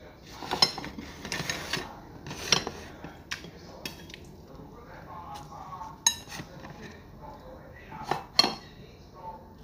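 Metal tongs clinking and scraping against a ceramic bowl and plates, a string of sharp clatters with the loudest about six and eight seconds in.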